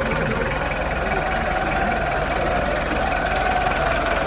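Steady din of a large crowd of football supporters marching along a street, with no single event standing out.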